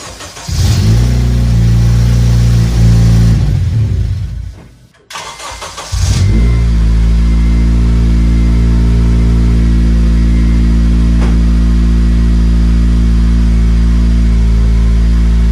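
Honda Civic Si (FA5) 2.0 L four-cylinder engine. First it is heard running with an exhaust leak at the header: the donut gasket to the mid-pipe is missing, leaving what is effectively an open header. After a cut about five seconds in, the engine starts and settles into a steady idle with the new donut gasket fitted and the leak fixed.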